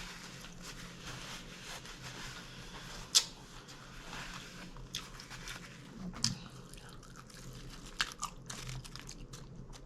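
A person chewing and biting taco salad close to the microphone, with crunching and scattered sharp clicks, the loudest about three seconds in, over a faint steady hum.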